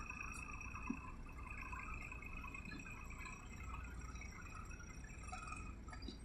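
Faint, steady low rumble of a diesel engine running, with a thin steady high tone above it.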